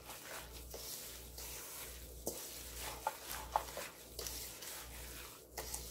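A gloved hand kneading grated ginger and coarse unrefined sugar together in a stainless steel bowl: a faint, steady wet mixing noise with a few small clicks.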